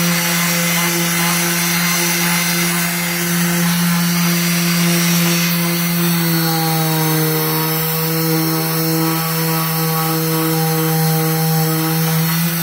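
Electric orbital hand sander running steadily, its sandpaper rubbing over a wooden board. The motor hum drops slightly in pitch about halfway through and holds there.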